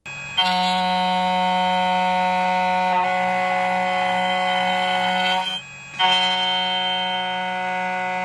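2M2 Tank CNC key cutting machine's cutter spindle running at a steady pitch, a high whine, while it mills the second side of a Suzuki key blank. It stops briefly about five and a half seconds in, then starts again at the same pitch.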